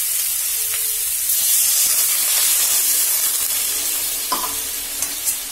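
Potatoes and spice paste in hot mustard oil sizzling steadily in a kadai as water goes in, with a metal spatula stirring. One sharp knock of the spatula against the pan comes about four seconds in.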